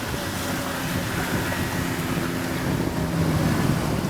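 Wind buffeting the microphone over rushing water from a moving boat, with a low steady engine hum.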